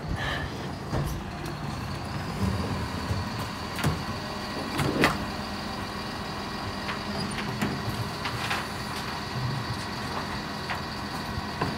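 Mercedes-Benz Econic bin lorry running steadily, with a few sharp clanks now and then, the loudest about five seconds in.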